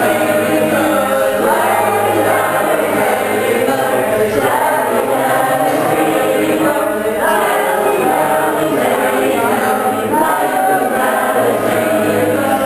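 A choir singing, many voices together in a continuous sung passage.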